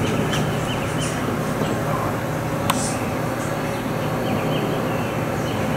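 A steady low mechanical hum, as from a kitchen fan or motor, with faint high bird chirps now and then and a single small click near the middle.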